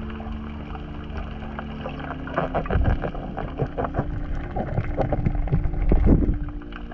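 Muffled underwater thumps, knocks and scraping as a diver's gloved hands grab crayfish against a rock, heard through an underwater camera housing over a steady low hum. The handling noise starts about two seconds in, comes thick and irregular, and peaks with a sharp knock near the end.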